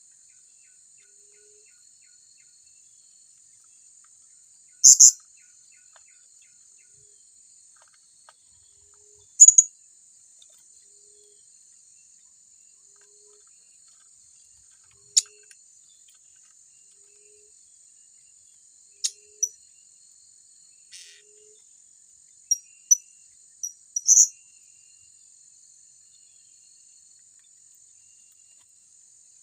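Blue-crowned hanging parrots giving short, sharp, high-pitched calls at irregular intervals, the loudest about five and ten seconds in and a quick cluster near the end. Under them runs a steady high insect buzz.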